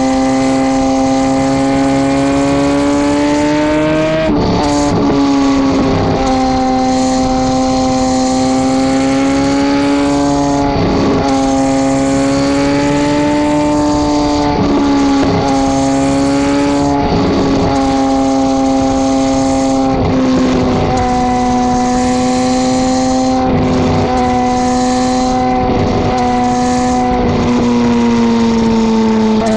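Two Brothers M2 aftermarket exhaust on a 2009 (K9) Suzuki GSX-R1000 inline-four, heard close to the muffler as the bike cruises at steady throttle. The exhaust gives a loud, steady drone whose pitch rises and dips only slightly, with a brief change about four seconds in.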